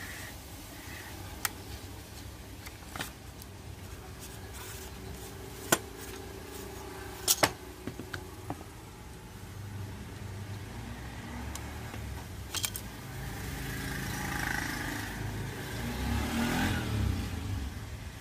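Sharp clicks and taps of plastic and metal parts being handled as a photocopier drum unit is taken apart and its drum lifted out. A low rumble builds in the second half and is loudest near the end.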